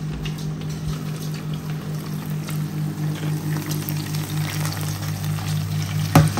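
Steady low hum of a kitchen fan, pulsing at an even rate, with light metal clatter as a roasting pan of chicken comes out of the oven, and a sharp knock about six seconds in as the pan is set down on the counter.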